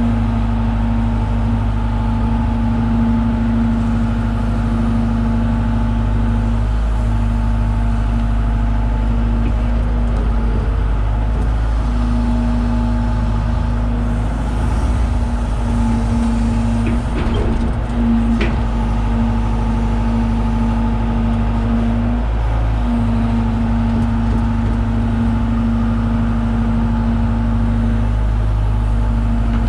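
John Deere 190E excavator's diesel engine running steadily under digging load, with a steady hum that drops out briefly several times. A few faint knocks about halfway through.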